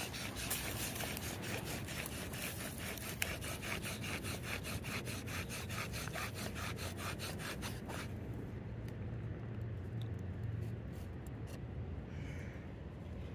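Bow drill spun at speed: the wooden spindle grinds in the hearth board's notch with quick, even back-and-forth strokes of the bow, building up the hot dust that forms an ember. The strokes stop about eight seconds in.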